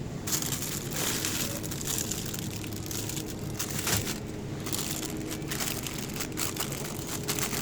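Close, irregular rustling and crinkling handling noise near the microphone as produce is picked over, with a low steady hum underneath.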